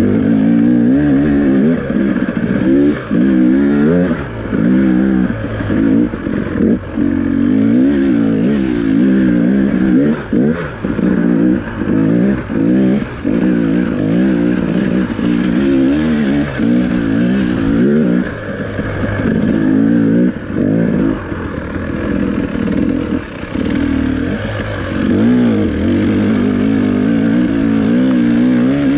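2018 KTM 300XC's single-cylinder two-stroke engine, breathing through a stock pipe and FMF Turbine Core 2.1 silencer, revving up and falling off again and again as the throttle is opened and chopped every second or two at race pace.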